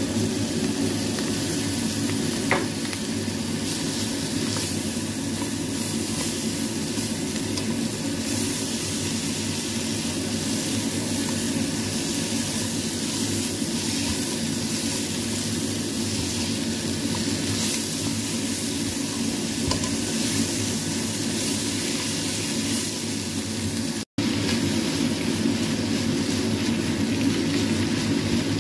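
Julienned squash sizzling in hot oil and spice paste in a pan while being stirred and tossed with a silicone spatula. A sharp click sounds about two and a half seconds in, and the sound drops out for an instant near the end.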